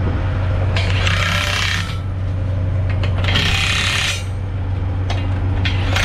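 A cordless drill driving the gear operator of a butterfly valve, running in two bursts of about a second each as the valve disc is turned, with a steady low hum underneath.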